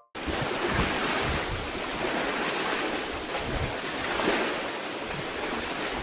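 Ocean surf: a steady rush of waves that cuts in suddenly and gently swells and eases.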